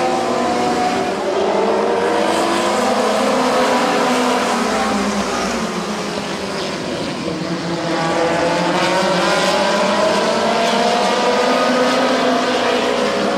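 Engines of a pack of winged midget race cars running at speed, several engine notes rising and falling as the cars pass, with a brief lull about halfway through.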